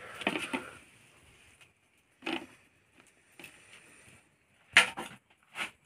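Cooked bamboo tubes and a large knife being handled over a plastic plate: a rustling scrape at the start, then a short knock and, near the end, two sharp clicks.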